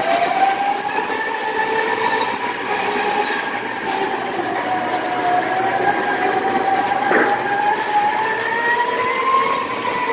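Go-kart motor whining steadily while driving, its pitch slowly dipping and then climbing with speed, over a constant rush of noise. A brief knock sounds about seven seconds in.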